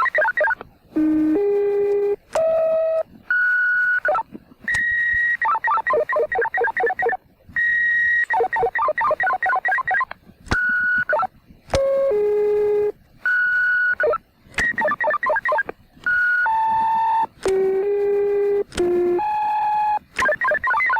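1982 pager system transmitter sending modulated paging tone sequences. Runs of steady tones step from pitch to pitch, each held about half a second to a second, and alternate with stretches of rapidly pulsing tones, broken by short gaps and a few sharp clicks.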